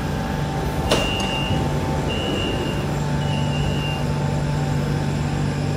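A clunk about a second in, then three steady high beeps, each under a second long: the door-opening warning tone of a BTS Skytrain's doors, over the steady hum of the stopped train.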